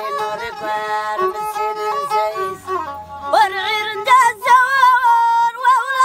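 Amazigh folk music: a violin held upright on the knee and bowed, playing a wavering, ornamented melody, with a woman singing along; the melody grows louder about three seconds in.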